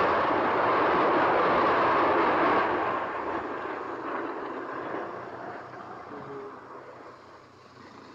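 Steam train running past with a loud, even rumble that fades away steadily from about three seconds in.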